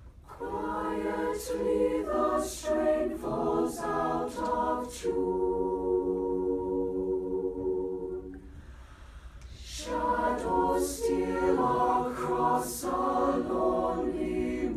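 Mixed-voice choir singing a cappella in close harmony, a phrase ending in a long held chord. After a short breath pause about eight seconds in, the singing resumes.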